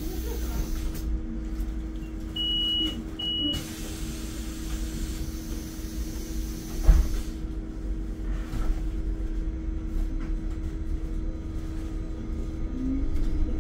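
Inside a Solaris Urbino 9 IV LE Electric bus: a steady electric hum over a low rumble, with two short beeps a few seconds in and a single thump about seven seconds in. Near the end a rising whine from the electric drive comes in as the bus pulls away.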